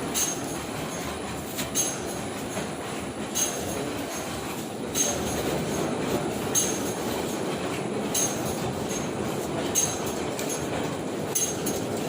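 Heidelberg Speedmaster four-colour offset printing press running at speed: a steady mechanical clatter and rumble with a sharp click about every second and a half.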